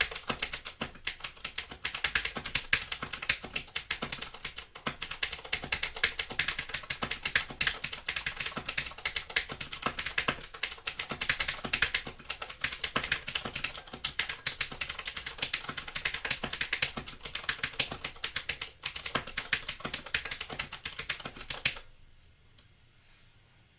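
Fast continuous typing on a Razer BlackWidow 2013 mechanical keyboard with clicky Cherry MX Blue switches, a dense run of sharp key clicks that stops suddenly about two seconds before the end.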